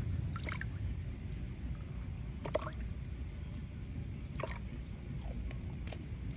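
Capfuls of liquid poured from a small bottle into a bottle cap and tipped into a basin of water, giving a few short splashes and drips about every two seconds over a low steady rumble.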